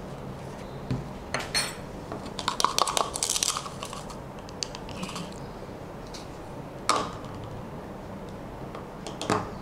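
Metal spoon scraping and clinking against a small bottle of cream of tartar and a small cup as a spoonful is measured out. There is a quick run of taps and scrapes about three seconds in, then single sharp knocks near seven seconds and near the end.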